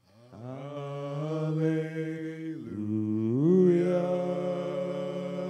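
Male voices singing a slow gospel song, holding long drawn-out notes without words being clearly formed; the pitch drops about halfway through and then climbs back up to a higher held note.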